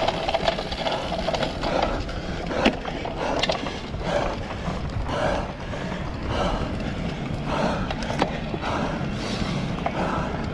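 Cyclocross bike ridden hard over rough off-road ground: tyres rolling and the chain and frame rattling, with a few sharp clicks and knocks.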